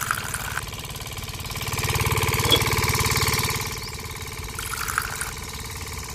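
A small engine or motor running with a steady, fast low chug. It gets louder for about a second and a half around the middle.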